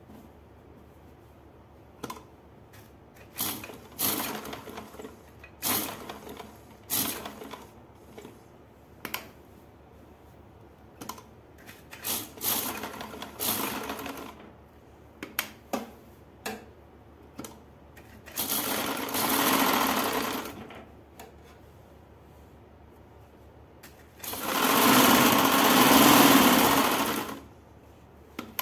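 Domestic sewing machine stitching through cotton fabric, sewing a neck facing onto a suit: many short stop-start bursts of a fraction of a second, then two longer runs of a few seconds in the second half, the last one the longest and loudest.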